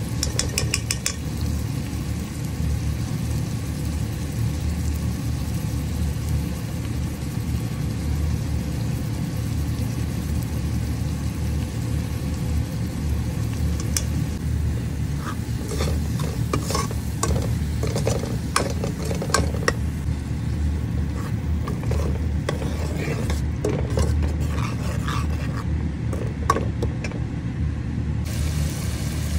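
Steel ladle stirring onion-tomato masala frying in oil in a steel pot: scrapes and clinks against the pot from about halfway on, over a steady low rumble. A quick run of light taps right at the start.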